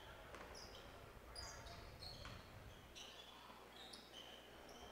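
Faint basketball game sounds: sneakers squeaking briefly on the court several times, with a ball bouncing.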